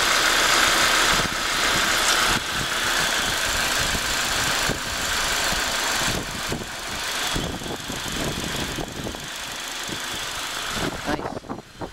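Freshly swapped four-cylinder engine of a 1990s Nissan Altima idling steadily and very quietly. It is a smooth hiss with a fine, even ticking rhythm, and the level dips slightly near the end.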